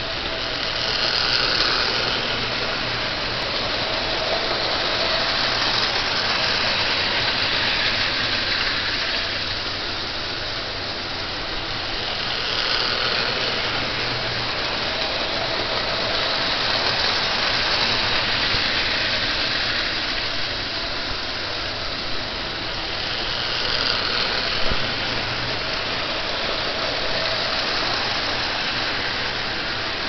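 O gauge toy train running on tubular three-rail steel track: a continuous rattle of wheels on the rails over a steady motor hum. It swells and fades every several seconds as the train goes round the loop.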